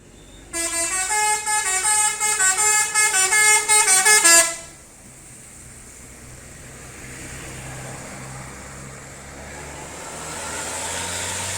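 Indonesian bus 'telolet' horn playing a quick stepping multi-note tune for about four seconds, then cutting off. A low engine rumble follows, growing slowly louder.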